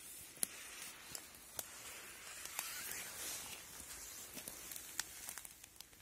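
Leaves and twigs rustling and crackling close to the microphone, with a handful of sharp snaps, the strongest about half a second and five seconds in.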